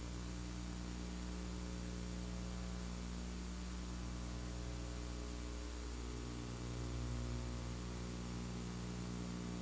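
Steady electrical hum with hiss on the recording's audio track, with a slight swell about seven seconds in; no distinct launch sound stands out.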